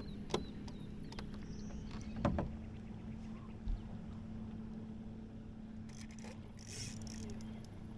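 A small electric motor on a bass boat humming steadily, with a few sharp knocks on the boat and a brief hiss near the end.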